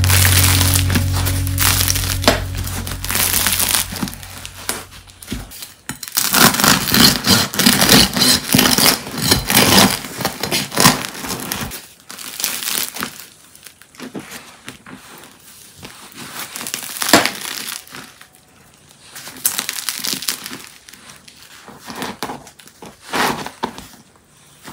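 Crust of a freshly baked homemade loaf crackling as hands squeeze it, in a dense run of crackles about six seconds in, then sparser cracks and crumbling as the loaf is broken open by hand. Guitar music fades out at the start.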